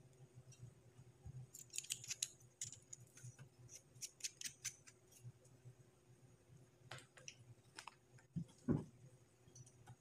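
Faint, rapid small metallic clicks and scrapes of vape atomizer parts being handled and screwed onto a box mod, in several short clusters, with a dull thump a little before the end.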